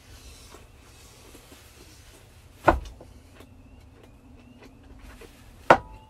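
Cutlery knocking on a metal plate while a pork chop is cut: two sharp knocks about three seconds apart, the second followed by a short metallic ring, with faint light clinks between.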